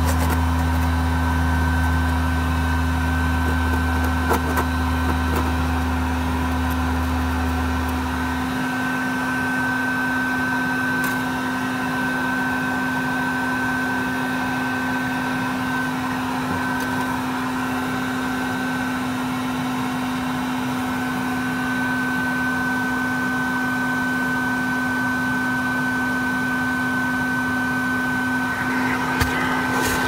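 Bee vacuum motor running steadily with a constant hum. A deeper low drone under it stops about eight seconds in.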